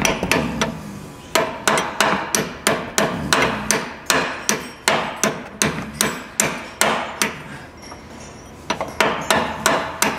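Hand hammer striking a metal punch held against the truck's front suspension to drive a stuck ball joint free: a run of sharp, ringing metal-on-metal blows at about two to three a second, with a pause of about a second near three-quarters of the way through.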